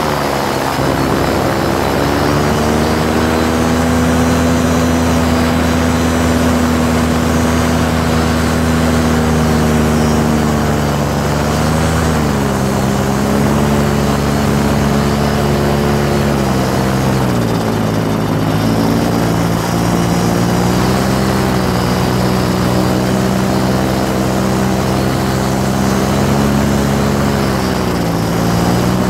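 Engine and pusher propeller of a Eurofly Snake Trike microlight running steadily. The pitch drops as the throttle is eased about twelve seconds in, again around seventeen seconds, and near the end.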